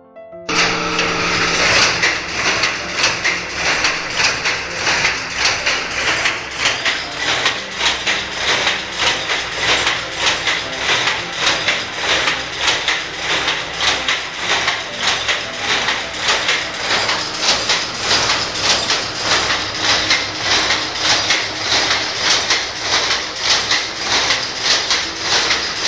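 Power loom running at speed, a loud, fast, even clatter of mechanical knocks repeating with every weaving stroke.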